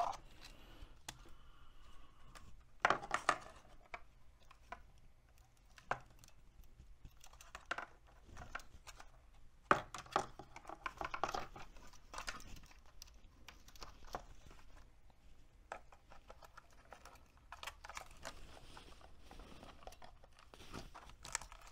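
Hands handling a small RC crawler truck: scattered light clicks, knocks and rustles of plastic parts, the loudest knock about halfway through. Near the end the hard plastic body shell is being fitted onto the chassis.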